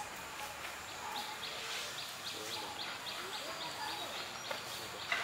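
A bird repeating a short, sharp high chirp about four times a second, starting about a second in, over faint distant voices.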